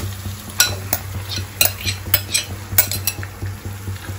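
A steel spoon scraping and clinking against a glass bowl as marinated chicken is spooned out into a pan, with irregular sharp clinks, over a low steady hum.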